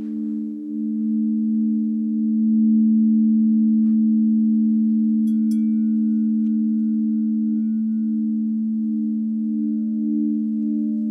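Crystal singing bowls ringing: a steady low hum of two close tones, with a gentle wavering beat, that swells about two and a half seconds in and slowly fades. A couple of light taps near the middle bring a faint higher ring for a few seconds.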